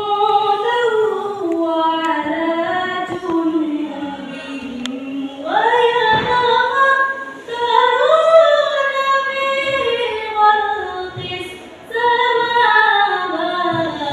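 A female voice reciting the Quran in the melodic tilawah style, unaccompanied, in long phrases that glide and waver in pitch, with short pauses for breath between them.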